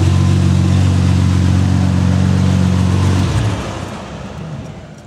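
Lamborghini Murciélago V12 running steadily at a constant pitch, then switched off a little over three seconds in, its sound dying away over the following second or two.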